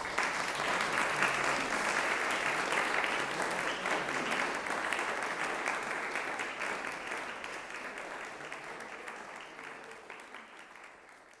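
Audience applauding: the clapping breaks out suddenly, holds for several seconds, then gradually dies away.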